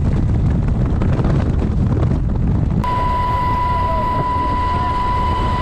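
UH-60 Black Hawk helicopter in flight heard from its open cabin doorway: a loud, steady rumble of engine and rotor noise with wind buffeting the microphone. About three seconds in, after a cut, a steady high whine sounds over the rumble.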